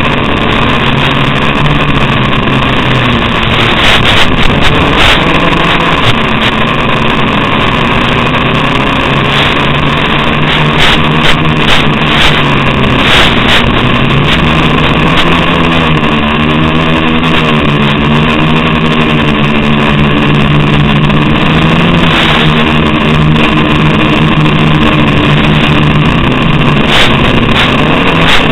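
Small FPV quadcopter's electric motors and propellers whining steadily in flight, the pitch wavering up and down with the throttle, most markedly about halfway through.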